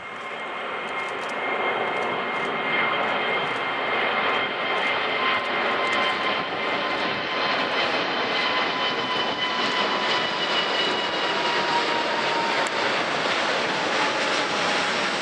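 Airbus A380-841's four Rolls-Royce Trent 900 engines at climb power as the airliner passes low overhead. The roar builds over the first two seconds and then stays loud and steady, with a high fan whine that slowly drops in pitch.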